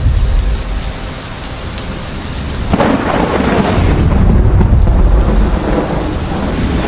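Thunderstorm sound effect: a deep rumble of thunder over a steady hiss of rain, with a fresh thunderclap breaking in about three seconds in and rolling on.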